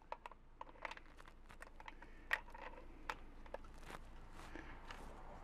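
Small clicks and taps of AAA batteries being pressed into the plastic battery compartment of a KAIWEETS KM401 multimeter, with one louder click a little over two seconds in.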